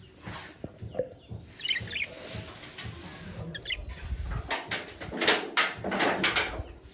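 Pet budgerigars (budgies) giving short, wavering chirps about two seconds in and again near four seconds, followed by a run of scratchy clicks and rustling in the second half.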